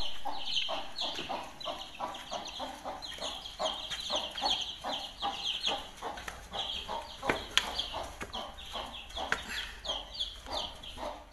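A hen clucking over a crowd of chicks that peep without pause, their cheeps high and falling. A few sharp taps stand out about halfway through.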